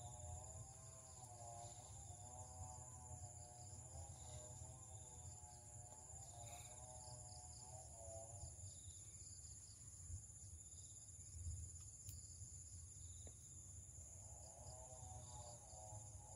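Faint, steady high-pitched insect trilling, with soft background music that fades out about halfway through and comes back near the end.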